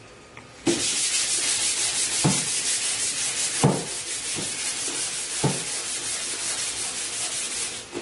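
Fine sandpaper rubbed by hand in quick back-and-forth strokes over a chalk-painted wooden console, smoothing the white paint finish. It starts about a second in, with a few dull knocks along the way.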